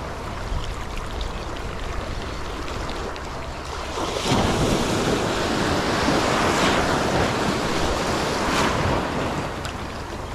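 Sea surf washing and breaking over shoreline rocks, with wind on the microphone. A larger wave surges in about four seconds in, making the loudest stretch, and washes back out near the end.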